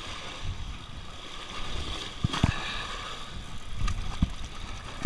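Small waves sloshing against granite jetty rocks, with a steady low rumble and a few dull knocks, two a little after two seconds in and one near four seconds.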